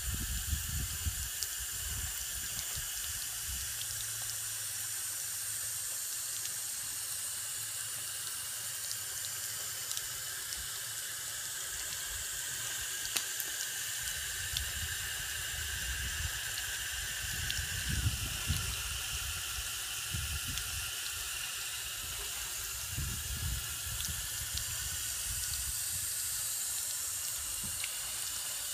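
A 3D-printed vortex nozzle on a garden hose spraying a swirling cone of water that splashes down onto a wooden bench and grass: a steady hiss of spray and splashing, with a few low rumbles.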